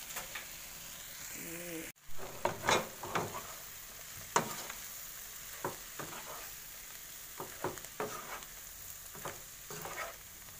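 Prawns sizzling in a frying pan while a spatula stirs and tosses them, with irregular clicks and scrapes of the spatula against the pan. There is a brief break in the sound about two seconds in.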